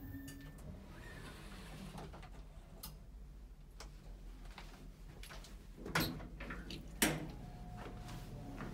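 Small passenger elevator running with a low hum, then two sharp knocks, about six and seven seconds in, as it stops and the doors are worked. A faint steady tone follows the second knock.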